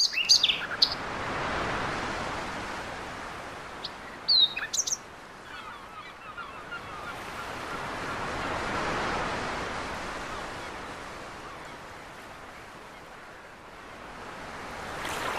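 Sea waves washing in slow swells, with small birds chirping over them at the start and again about four to five seconds in.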